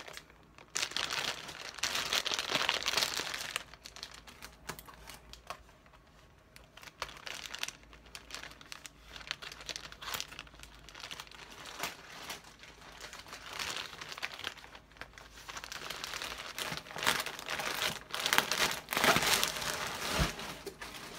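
White plastic shipping mailer crinkling and rustling as it is handled and pulled open, in irregular bursts, loudest in the first few seconds and again near the end.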